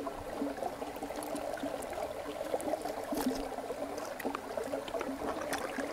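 Steady rush of a shallow river flowing over rocks, with a few faint clicks of roasted chicken being torn apart and chewed close to a lapel microphone.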